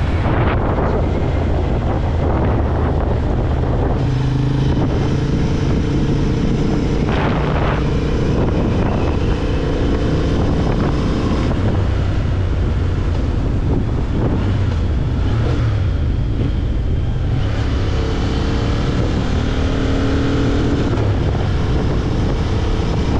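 Motorcycle engine running under way, its pitch shifting a few times as the revs change, with wind noise on the microphone.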